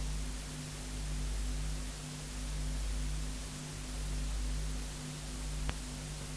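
Cassette tape hiss in the blank stretch between two songs, with a steady hum and a low rumble that swells and dips about every one and a half seconds. A single click comes near the end.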